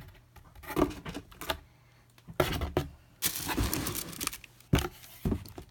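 Tissue-paper wrapping in a gift box rustling and crinkling as it is handled, in irregular short bursts mixed with small clicks. There are two sharp taps near the end.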